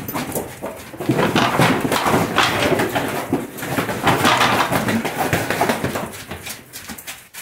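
Cattle being unloaded into a muddy corral: a dense, irregular jumble of hoof knocks, scuffs and thuds as the animals slip and stumble. The sound thins out in the last second.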